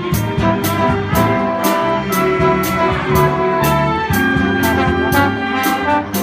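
Jazz band playing, with brass horns holding notes over the rhythm section and a cymbal struck about twice a second.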